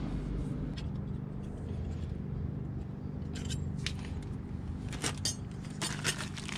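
Scattered light clicks and clinks of small metal parts, the caliper cover's retaining clips and hardware, being handled, more of them in the second half, over a steady low hum.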